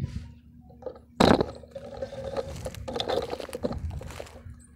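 A sharp knock about a second in, followed by a couple of seconds of irregular rustling and scraping: handling noise from a camera being moved.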